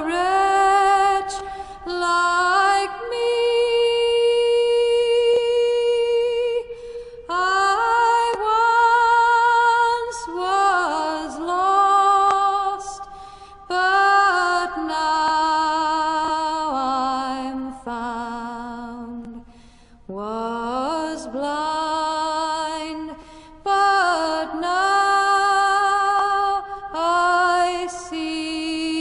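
Music: a single voice singing a slow melody, holding long notes with vibrato and sliding up into some of them.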